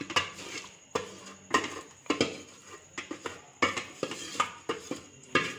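A spoon clinking and scraping against a cooking pot in irregular strokes, roughly two a second, as masala is spooned into the biryani base and stirred through.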